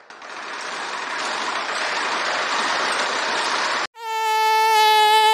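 Edited transition sound effects: a rushing noise swells up and holds for about four seconds, then cuts off abruptly. A steady buzzing tone with many overtones follows as the title card appears.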